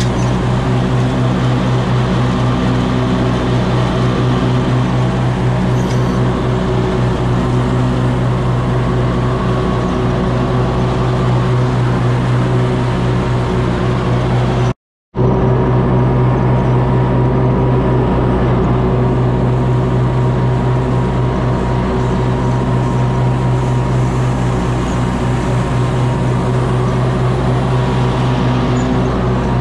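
Ferris stand-on mower's engine running steadily at mowing speed with its cutting deck engaged. The sound drops out completely for a moment about halfway through.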